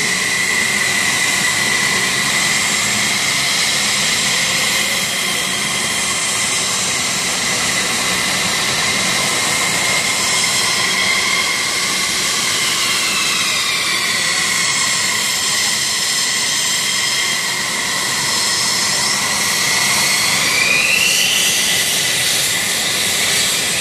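Fighter jet engines idling as F-16s taxi: a steady high whine over a rushing hiss. The whines shift in pitch, and one rises sharply about 20 seconds in.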